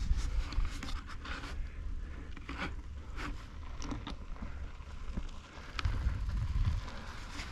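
Irregular scrapes and rustles, a few short strokes a second at uneven spacing, over a steady low rumble.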